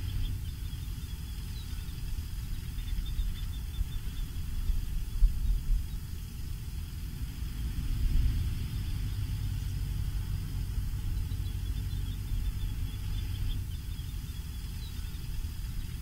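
A low, steady rumble, uneven in loudness with a brief swell about five seconds in, with faint high chirps of distant birds over it.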